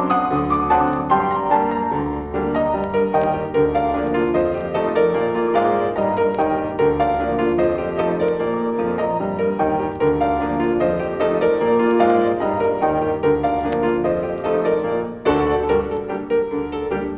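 Piano music accompanying the film.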